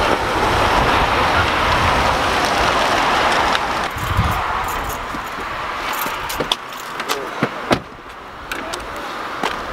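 Car driving up with a steady rush of tyres and engine that dies away after about three and a half seconds. A dull thump follows, then a scatter of sharp clicks and rattles.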